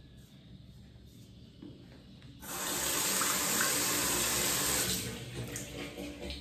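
Sink tap running with a safety razor rinsed under the stream. The tap comes on suddenly about two and a half seconds in and runs for a couple of seconds before tapering off.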